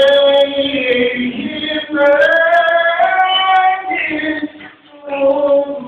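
A high voice singing a devotional naat in long held, gliding notes, with a short break about four and a half seconds in before the voice resumes.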